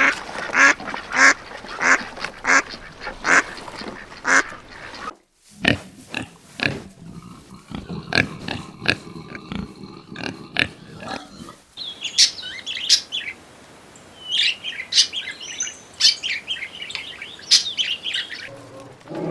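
Ducks quacking in a steady series, about one and a half calls a second. After an abrupt cut comes a lower, irregular run of animal calls. After another cut comes a stretch of high, rapid chirping.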